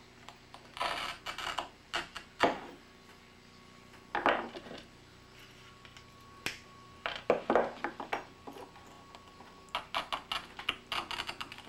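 Small pieces of brittle stained glass being nibbled and snapped with pliers at a workbench: a string of short, sharp crunches and clicks, with a quick run of clicks near the end.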